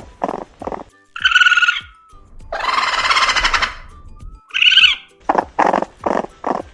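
Raccoon vocalizing: a run of quick short chitters, two brief squealing calls, and a long harsh screech about halfway through.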